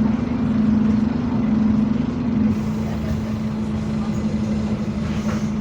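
Scania double-decker bus engine running with a steady drone; the pitch drops slightly about two and a half seconds in.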